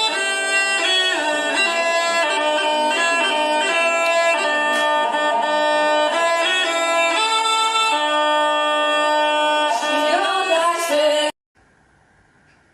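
Nokia 7310 mobile phone's custom ringtone for an incoming call playing a melody of several sustained instrument-like notes at once. It cuts off abruptly near the end, leaving only a faint steady hum.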